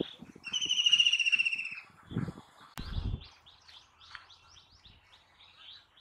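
White-throated kingfisher giving a loud, rapid trilled call that lasts a little over a second and falls slightly in pitch. Fainter short high chirps follow, several a second.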